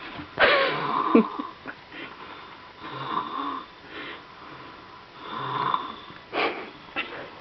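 A baby snoring in sleep, with snores about two and a half seconds apart and a louder, wavering burst about half a second in.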